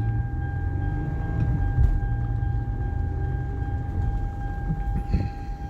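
Road and engine noise of a 2008 Toyota Highlander heard from inside its cabin while driving: a steady low rumble, with a faint steady high tone running under it.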